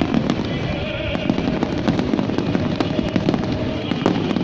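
Aerial fireworks display: many sharp bangs and pops of shells and crackle effects bursting in quick succession, over a continuous dense crackling.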